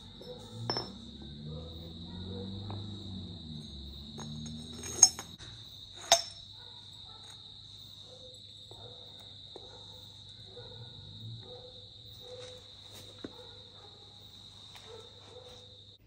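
Steel Panhard rod parts handled on a concrete floor: a few light knocks, then two sharp metallic clinks about five and six seconds in, over a steady high-pitched whine and a low hum.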